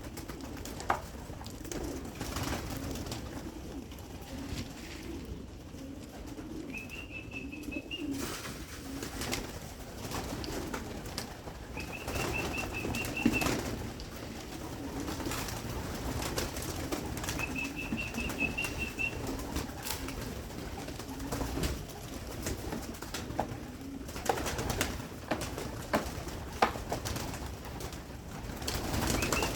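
Young pigeons in a loft cooing, with wing flaps and scattered clicks and ticks as they feed. A short high warbling trill comes in four times, each about a second and a half long.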